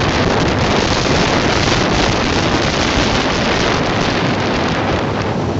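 Loud, steady wind rushing over the microphone of a motorcycle rider at highway speed, with road noise beneath.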